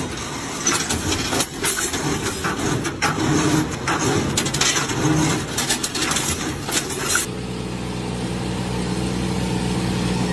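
Rapid clattering and knocking for about seven seconds, then an abrupt change to a steady engine drone, the small motor of a motorized mist-blower crop sprayer.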